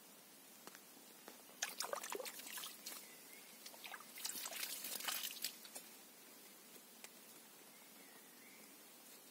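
Faint rustling and crackling of grass and dry leaves, in two bursts about two and five seconds in, over a steady hiss.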